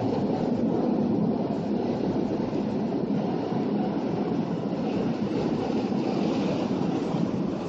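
Steady road noise of a moving car, heard from inside the cabin.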